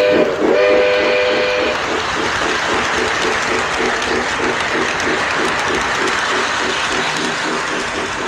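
Lionel LionChief 2-4-2 toy steam locomotive's onboard sound: a steam-whistle blast that ends about a second and a half in, then a fast, steady electronic chuffing as the train runs along O gauge track.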